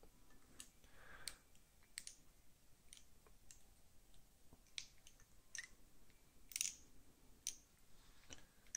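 Faint, irregular small metal clicks and taps from the parts of a Boker automatic folding knife being handled and worked at the pivot during disassembly.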